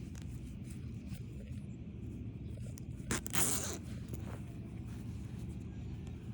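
A zipper pulled once, a short rasp about halfway through, over a steady low background rumble.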